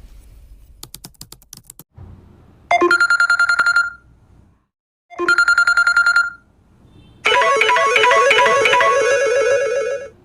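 Samsung Galaxy Note 5 ringtones playing one after another: first a quick run of clicks, then two identical short rings, then, about seven seconds in, a plucked, guitar-like ringtone melody.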